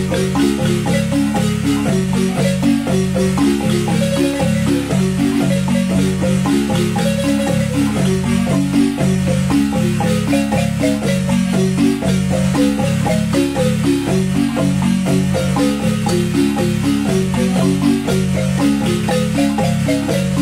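A wooden marimba played by three players with mallets, a son: continuous struck wooden notes with a repeating bass pattern under a quicker melody.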